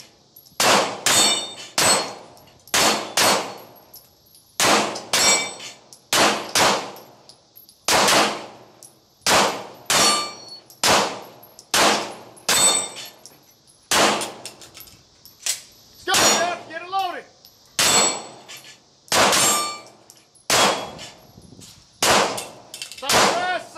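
Two pistols firing in an irregular string, a little more than one shot a second, at a steel dueling tree. Hits are answered by the ringing clang of the steel plates.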